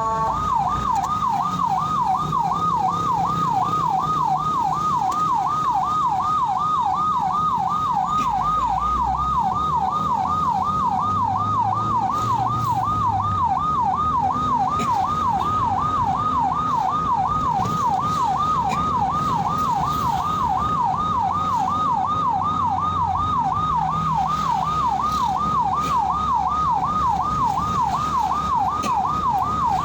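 Ambulance siren on a fast warble, its pitch sweeping up and down about two and a half times a second without a break, over the low rumble of the vehicle's engine and road noise.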